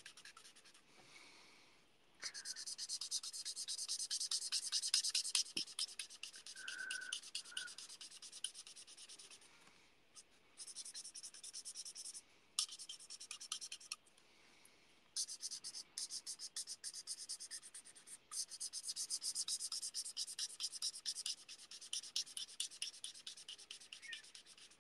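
Alcohol marker nib scratching on card in rapid short colouring strokes, coming in runs of a few seconds with brief pauses between.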